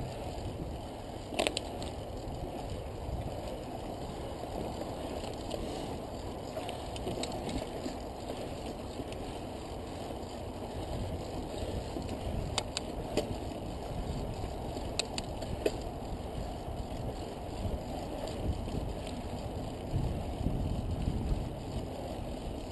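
Mountain bike rolling slowly along a dirt singletrack: a steady low noise of the tyres on dirt and loose rock, with a few sharp clicks and rattles from the bike over bumps.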